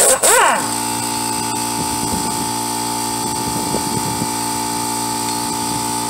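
Air impact wrench on a rear hub-assembly bolt: a short hammering burst that ends about half a second in, then a steady running whine with air hiss as the bolt spins out freely.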